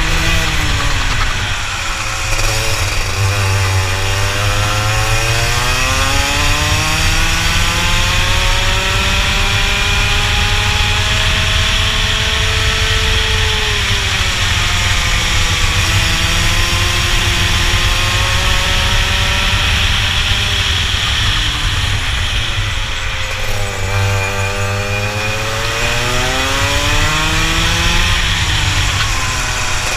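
Onboard sound of a Rotax 125cc two-stroke kart engine at racing speed, its pitch climbing along the straights and dropping sharply three times as the kart brakes for corners, then rising again on the throttle.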